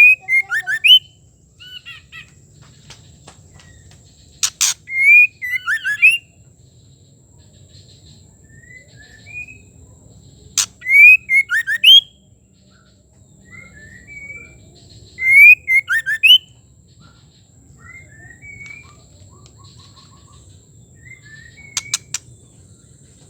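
Female white-rumped shama calling: a sharp click followed by a quick run of short whistled notes sliding up and down, repeated four times about every five seconds, with softer chirps in between.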